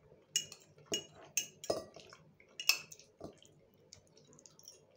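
Metal fork clinking and scraping against a glass plate while scooping food, with about six sharp clinks in the first three and a half seconds and fainter taps after.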